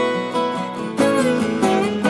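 Background music made of quick plucked notes, each starting sharply and ringing on.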